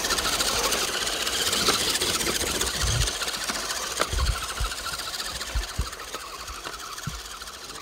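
A motor running with a fast buzzing rattle that slowly fades, and a few short, dull low thumps.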